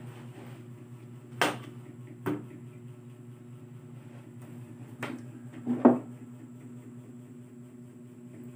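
Four short, sharp clicks and knocks over a steady low hum, the loudest about six seconds in.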